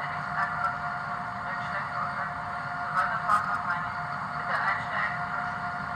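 Sound decoder of a Roco BR 232 model diesel locomotive playing through its small onboard speaker: a recorded station announcement over the steady idling diesel engine sound.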